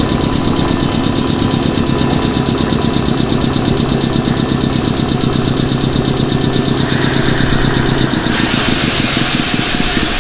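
Nankai 6000 series train's C-1000 air compressor running under the car, a fast steady pulsing chug with a low hum. About eight seconds in the hum stops and a loud hiss of escaping air takes over.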